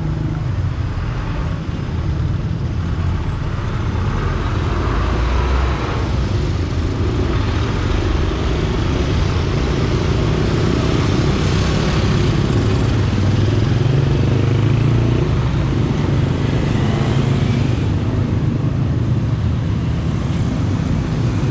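Street traffic: the engines of passing motor vehicles running in a continuous low rumble.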